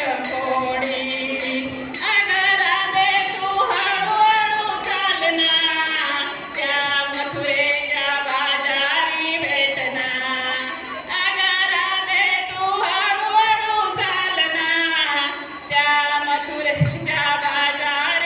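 A woman singing a Marathi gavlan, a devotional folk song about Krishna, in long melodic lines. Jingling percussion keeps a steady beat of about three strikes a second.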